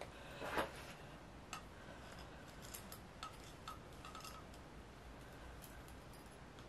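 Faint handling sounds of a thin wire being fed through the back of a chrome motorcycle indicator housing: a short rustle about half a second in, then scattered light clicks and ticks.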